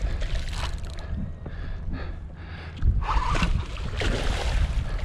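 Hooked tarpon splashing and thrashing at the water's surface beside the boat, loudest from about three seconds in, over a steady low rumble.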